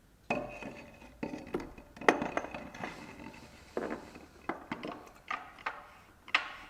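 Steel B-clutch drum of a ZF 6HP26 automatic transmission being lowered into the case and worked onto the four friction plates: irregular metallic clinks and light knocks, some ringing briefly.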